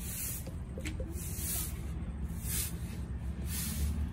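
A stick broom sweeping concrete paving in short, repeated swishes, about one a second.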